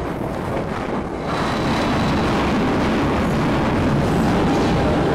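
Old passenger carriage of a diesel-hauled museum train running along the track: a steady noise of wheels on rails that grows louder about a second in.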